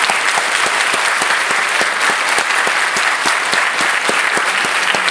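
Audience applauding steadily, a dense mass of many hands clapping at once.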